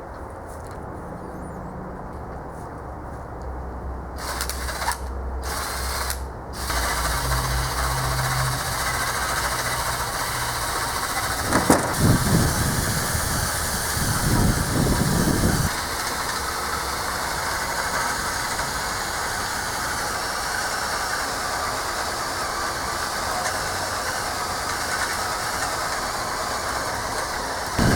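Machinery running steadily, growing louder about six seconds in, with one sharp knock about twelve seconds in followed by a few seconds of heavier rumbling.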